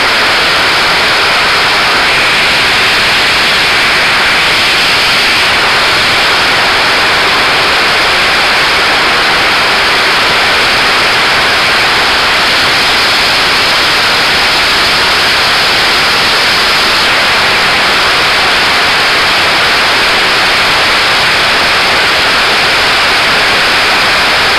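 Heavy downpour: a loud, steady hiss of rain that does not let up.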